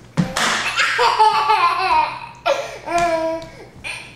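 A toddler laughing in two long bouts, the second starting about two and a half seconds in.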